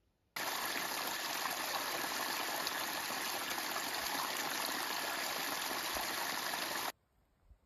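Small forest creek running in a steady rush over rocks and moss. It cuts in sharply about half a second in and cuts off abruptly near the end.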